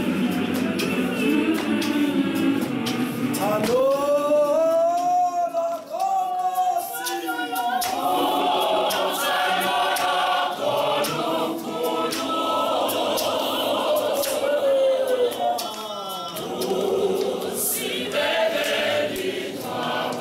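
A church choir of mixed men's and women's voices singing together without instruments. For a few seconds near the middle, one voice stands out clearly above the group.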